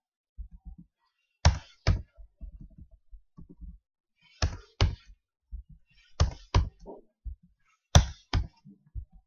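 Computer keyboard keys clicking in four short bursts of two or three strokes, with faint low thuds in between.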